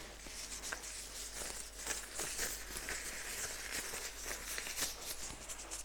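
Soft rustling and crinkling with many small scattered clicks as hands handle things at the work table.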